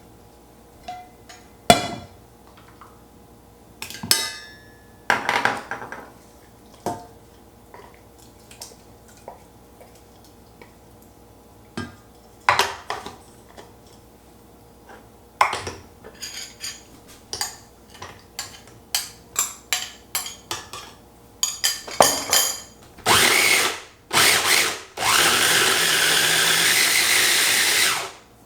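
Scattered clicks and knocks, then a food processor pulsed twice briefly and run steadily for about three seconds, breaking down chunky mango pieces; it cuts off sharply.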